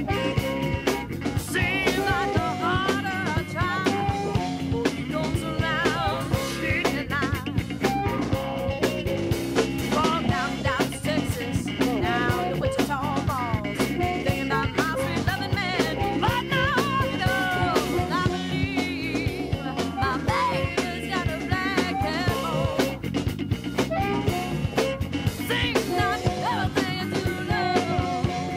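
A recorded blues-rock song: a band with a drum kit and a singing voice, at a steady loud level.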